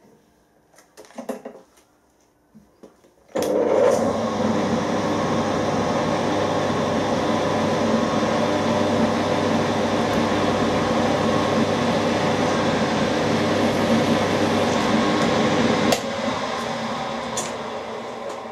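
Milling machine spindle motor starting suddenly about three seconds in and running steadily while a centre drill cuts a centre mark into the workpiece. At about 16 s the sound drops and fades as the spindle stops and winds down.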